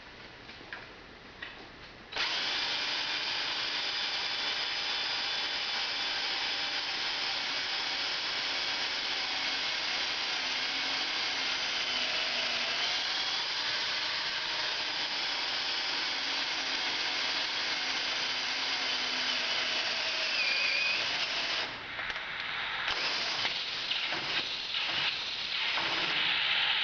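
A power drill starts about two seconds in and runs steadily with a whine, boring a hole through the wall of a pressurised 2-inch pipe through an open valve for a hot tap. It stops about 22 seconds in, followed by shorter uneven bursts of drilling.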